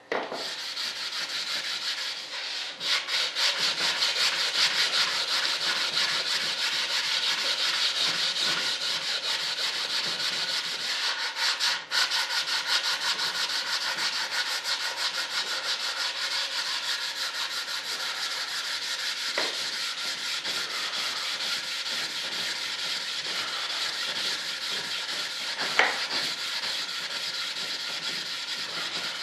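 Sandpaper rubbed by hand over a filled RC jet intake-duct plug in rapid, steady back-and-forth strokes. There is a brief break about twelve seconds in and a single knock near the end.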